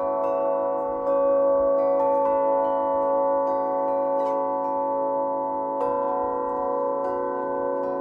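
A set of flat metal plate bells tuned to an ancient Greek mode, hung in a wooden frame and struck with soft-headed mallets in a slow, spaced melody. Each stroke rings on and overlaps the ones before into a sustained wash of tones, with one low tone wavering steadily.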